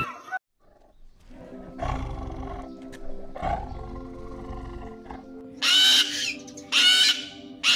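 A tiger growling twice, each low, rough growl lasting about a second. Then cockatoos screech loudly three times in quick succession, the loudest sounds, over background music with held notes.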